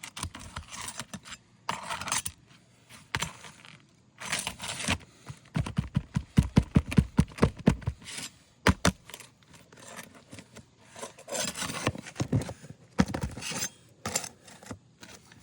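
Roofing nails being worked out of asphalt shingles with a metal tool: gritty scraping and rubbing against the shingles with small metal clinks, and a quick rattle of sharp taps about halfway through.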